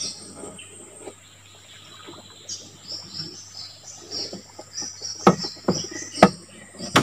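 Forest insects chirping in a string of short, high, repeated notes, about two a second. Two sharp knocks in the second half stand out as the loudest sounds.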